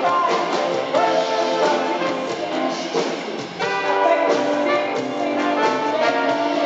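Live band music with horns, a woman singing the lead vocal over it. The band thins briefly a little past halfway, then comes back in full.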